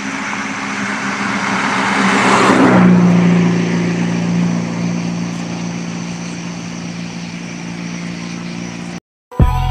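A car passes by on the road, its tyre and engine noise building to a peak about two and a half seconds in and then fading away, with a low hum that drops slightly in pitch as it goes past. The sound cuts off abruptly near the end.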